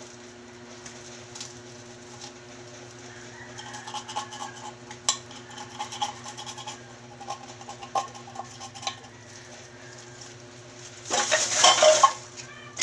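Scattered clinks and clatter of household rubbish being sorted by hand, with cans and other recyclables knocked and dropped into containers. About a second before the end there is a louder, brief burst of rattling noise.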